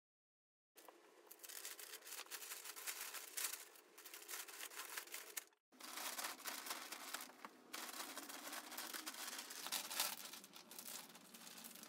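Thin clear plastic vacuum storage bag crinkling and rustling as it is handled and stuffed with pillows and bedding, then pressed flat while its zip seal is closed with the slider. It begins after a moment of silence, with a short break about halfway through.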